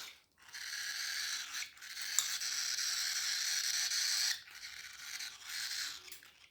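Cockatiel chicks begging for food with raspy, hissing calls in three runs, the longest about two and a half seconds, broken by short pauses.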